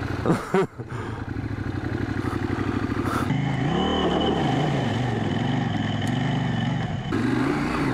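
Parallel-twin adventure motorcycle engine running under load, its pitch rising and falling with the throttle from about three seconds in.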